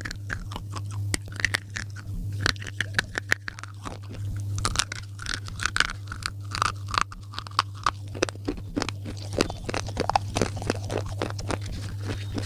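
Close-miked chewing of slate pencils: a dense run of sharp crunches and crackles that comes faster in the second half. A steady low hum runs underneath.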